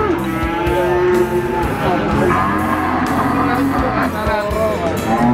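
Cattle mooing in long drawn-out calls, one after another, over music playing in the background.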